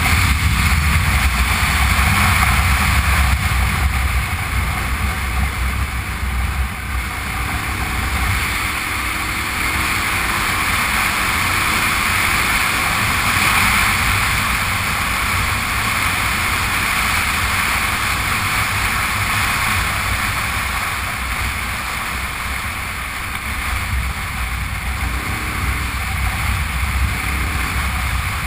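Motorcycle on the move: steady wind rush over the camera microphone mixed with the low drone of a Honda Transalp's V-twin engine and tyre noise on a gravel track.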